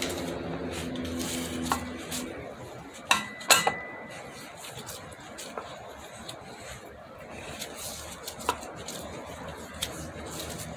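Wrench and bearing puller clinking, metal on metal, as the puller nut is cranked down to draw a wheel bearing out of the wheel hub. The clinks come scattered, the loudest about three and a half seconds in with a short ring. A low hum dies away about two seconds in.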